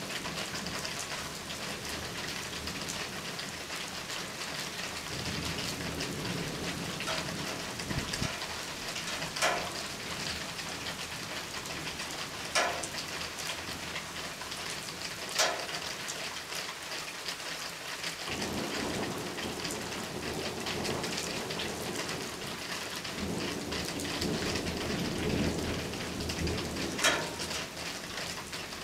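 Steady rain falling during a thunderstorm, with thunder rumbling low twice, about a fifth of the way in and again through most of the second half. Four sharp drips smack close by, the loudest sounds.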